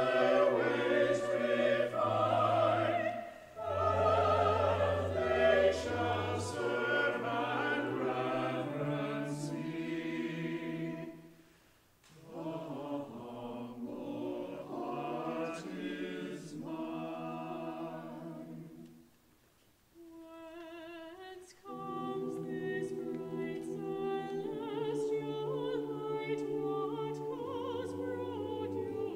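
Mixed church choir singing an anthem with keyboard accompaniment, in phrases with short breaks between them: a brief one a few seconds in, another about 12 seconds in, and a longer one around 19 to 21 seconds in, where only a soft single line carries on.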